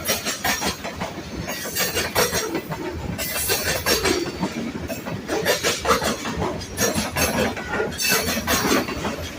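A freight train's cars rolling past, the wheels clacking rapidly and irregularly over the rail joints over a steady rumble.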